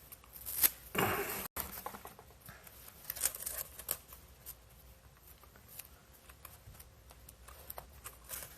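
Small scattered clicks and taps of hands handling laptop parts, screws and a small screwdriver, with a brief louder scraping sound about a second in.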